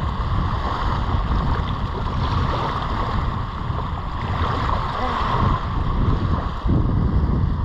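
Wind buffeting the microphone with heavy rumble, over the steady wash of surf, briefly dropping off near the end.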